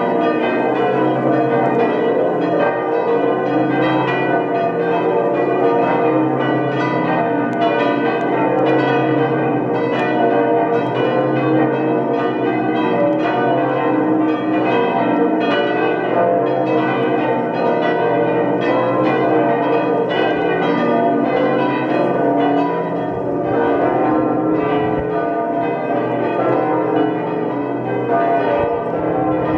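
Peal of the Onze-Lieve-Vrouwekerk's five historic swinging bronze bells (cast 1446–1689, tuned E-flat, B-flat, A, G, G-flat), ringing together with overlapping, unmetered strokes. The big bourdon is not ringing.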